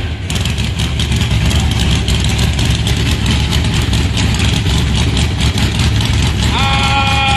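A drag race car's engine idling loudly with a fast, choppy beat. Music comes in near the end.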